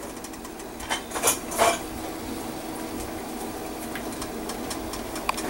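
A metal ladle clinks lightly against a stainless-steel cooking pot about three times, about a second in, over a faint steady hum.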